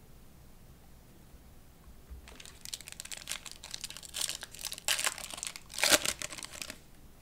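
Foil wrapper of a Panini Prizm Draft Picks trading-card pack crinkling and tearing as it is ripped open by hand, starting about two seconds in and loudest about six seconds in.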